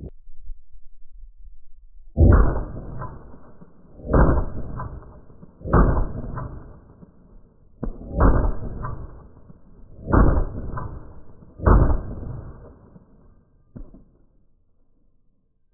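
AR-15 rifle shots slowed down with slow-motion footage: six deep, drawn-out booms, each trailing off slowly, with a fainter seventh near the end.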